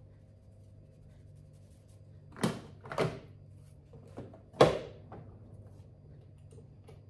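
Knocks and clicks from handling an electric coffee machine's lid and parts: two sharp knocks about half a second apart, then a faint one and the loudest knock soon after, over a low steady hum.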